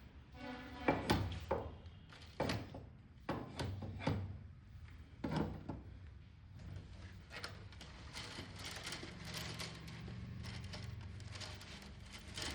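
A series of irregular knocks and thunks, strongest in the first half, followed by a low steady hum over the last few seconds.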